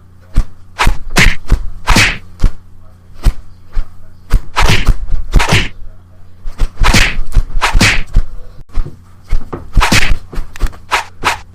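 A whipping: about twenty swishes and sharp smacks in quick, uneven succession, some close together in runs.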